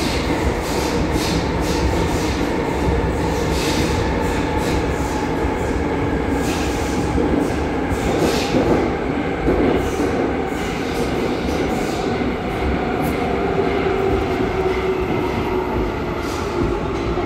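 Metro train running, heard from inside the passenger carriage: a steady rumble of wheels and running gear with scattered clicks over the track.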